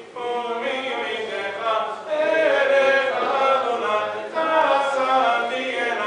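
Men's voices chanting Sephardic Selichot penitential prayers in Hebrew, a melodic congregational chant that grows louder about two seconds in.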